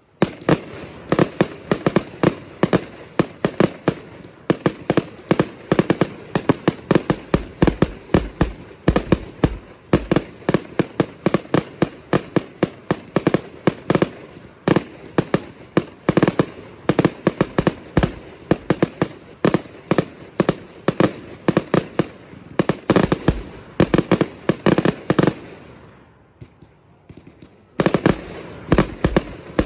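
Consumer firework cakes firing a rapid barrage of aerial shots and bursts, several sharp reports a second. The firing drops away for about two seconds near the end, then a new barrage starts.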